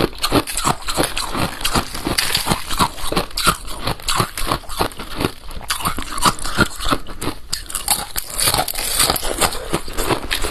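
Balloon-frozen ice being bitten and chewed close to the microphone: a rapid, unbroken run of hard crunches, several a second.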